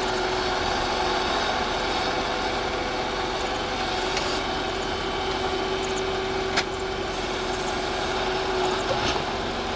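Excavator engine running steadily. There is a sharp click about six and a half seconds in.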